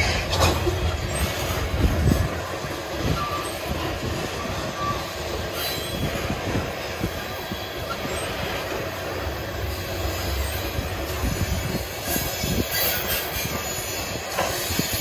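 Freight cars of a long manifest freight train rolling past, a steady rumble of wheels on rail broken by several sharp knocks and clanks. Faint wheel squeal rides over it.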